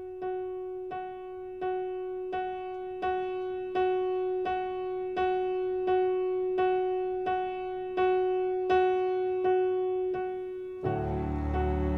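Background music: a single piano note repeated evenly, about every 0.7 seconds, each strike fading before the next. Near the end a fuller accompaniment with low bass comes in.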